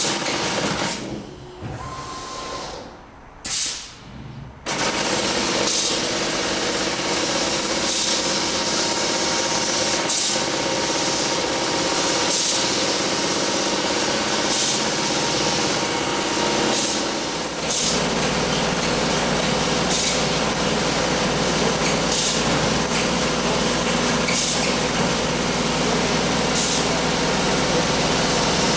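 Wilcom AutoTuft robot tufting machine running, a dense steady mechanical chatter with short sharp bursts about every two seconds. It drops away about a second in and comes back about five seconds in.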